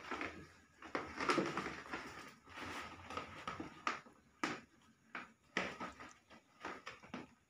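Several cats play-fighting on and under a plastic floor mat: the mat rustles and crinkles as they scuffle, with a few short sharp taps and knocks in the second half.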